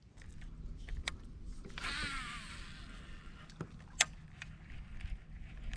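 Fishing reel spool whirring as line pays out on a cast with a jerkbait, its pitch falling as the spool slows, about two seconds in. A few sharp clicks come before and after it.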